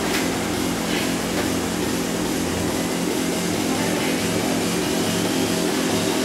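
A steady rushing noise with a low hum underneath.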